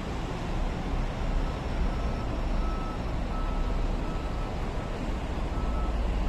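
Repeated electronic beeping, a single pitch in short runs, over a steady low rumble of vehicle engines and traffic.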